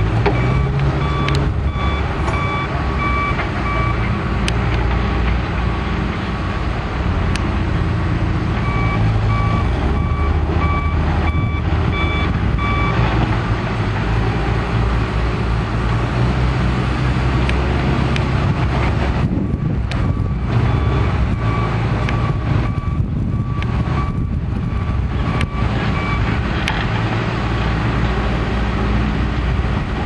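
Diesel engines of John Deere backhoe loaders running steadily under load, with a reverse alarm beeping in three separate stretches as a machine backs up.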